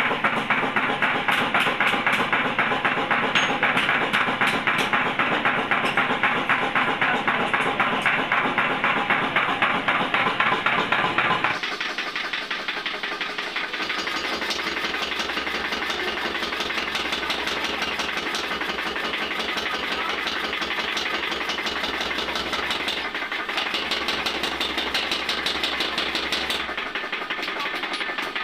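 Mechanical power hammer beating steel in a fast, steady rhythm of many blows a second. About eleven seconds in the sound changes and turns slightly quieter, then runs on at the same pace.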